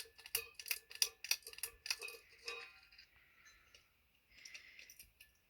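Harbor Breeze Ocracoke ceiling fan's pull-chain fan-speed switch being worked by hand: a quick series of sharp clicks and light chain rattles for about three seconds, then a few fainter ones.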